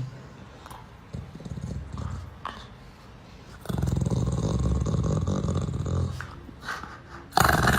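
A dog growling: a low, rapidly pulsing rumble lasting a couple of seconds, then a sudden louder sound near the end.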